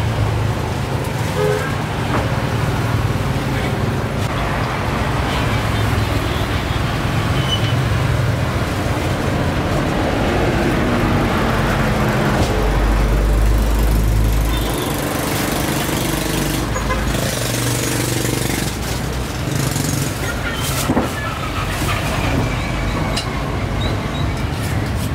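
Busy roadside market ambience dominated by road traffic: vehicle engines running and passing, with a deeper rumble swelling for a couple of seconds around the middle.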